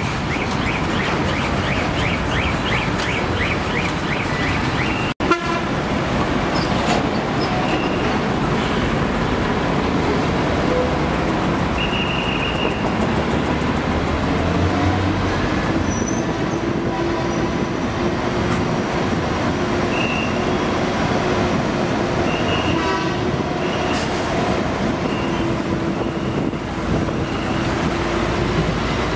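Night street traffic around a heavy-truck convoy: diesel engines running steadily, with short horn toots now and then. A low engine note rises and then holds steady through the second half as heavy vehicles pull past.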